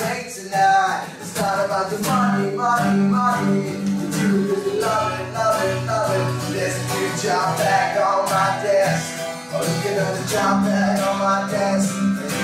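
A man singing a song while strumming an acoustic guitar.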